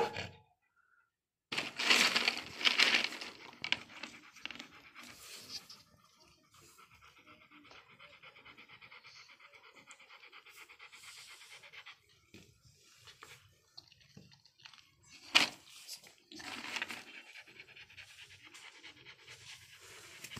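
Doberman panting, in loud rhythmic bouts a couple of seconds in and again about sixteen seconds in, fainter in between. A single short sharp sound comes just before the second bout.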